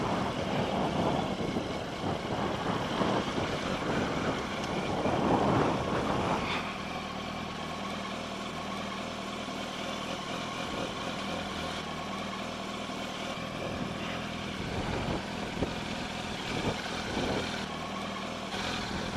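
Motorcycle engine running at low speed as the bike rolls in and slows, then settling to a steady idle from about six seconds in.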